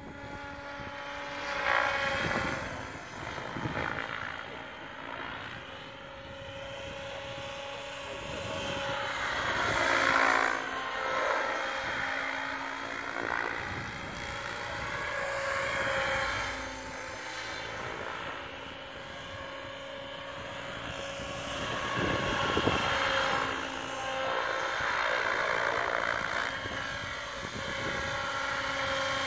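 Electric Align T-Rex 700 Pro RC helicopter in flight: a steady whine from the motor and drivetrain under the rotor noise, growing louder and softer several times as it manoeuvres and passes closer, loudest about ten seconds in and again in the last third.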